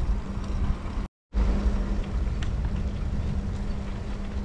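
Steady rumble of wind on the microphone and road traffic while cycling beside a highway. The sound cuts out completely for a moment about a second in.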